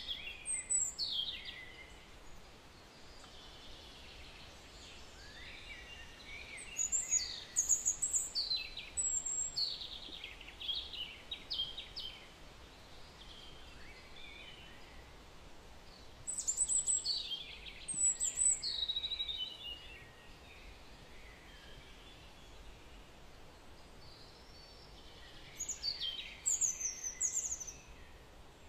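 A small bird singing in bouts of quick high chirping, whistled notes a few seconds long, separated by pauses of several seconds, over a steady background hiss.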